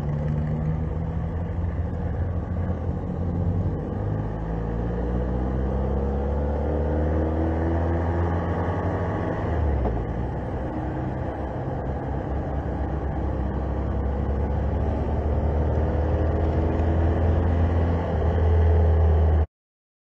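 Motorcycle engine running under way on a twisty road, with a strong low rumble. Its pitch climbs repeatedly as it accelerates and drops once about halfway through. The sound cuts off suddenly near the end.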